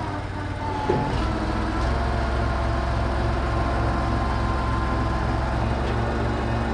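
Truck crane's engine running steadily under load, a low rumble with a steady rhythm, with one sharp knock about a second in.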